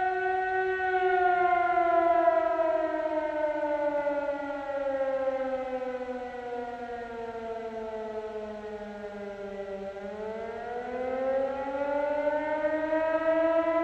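A siren-like wailing tone that slowly falls in pitch for about ten seconds, then rises again near the end.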